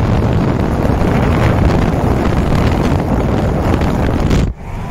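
Wind rushing and buffeting the microphone held at the open window of a car driving at speed, mixed with road noise. It cuts off suddenly about four and a half seconds in.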